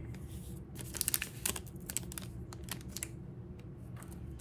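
Wrapper of a football trading-card pack crinkling and crackling as it is torn open and the cards are slid out, in quick clusters of crackles about a second in and again near three seconds.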